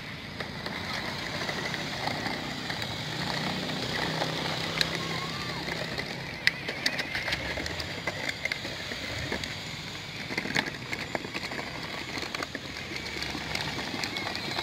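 Homemade ride-on car driven by a cordless hand-drill motor, whirring with a slightly wavering pitch as its small plastic wheels roll over asphalt, with scattered clicks and rattles.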